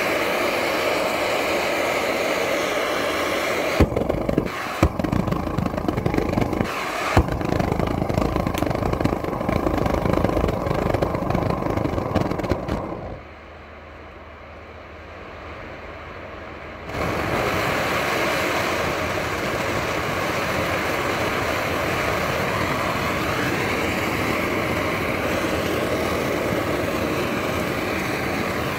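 Propane chip forge burning with its blower on, a steady loud rush of gas and air through a bed of broken firebrick. It drops much quieter for about four seconds near the middle, then comes back. A few sharp metal clinks come between about four and seven seconds in.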